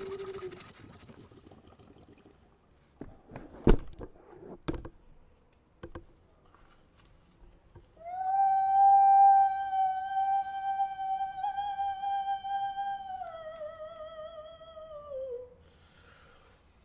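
A few sharp knocks, then a voice holds one long high note for about seven seconds, which wavers and slides down at the end.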